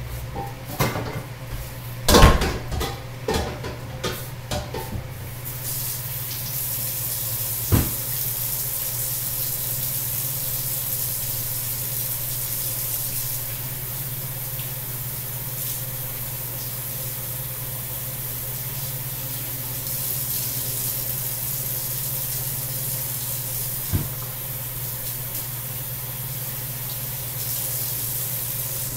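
A few knocks and bumps, then water running steadily from a tap for about twenty seconds, with a single knock about eight seconds in. A low hum runs underneath.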